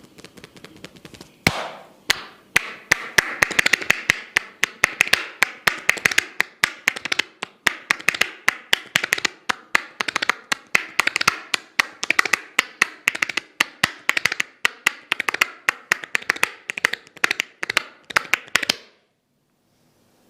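Percussive massage tapping: quick, rhythmic sharp taps at several a second that keep up steadily and then stop suddenly near the end.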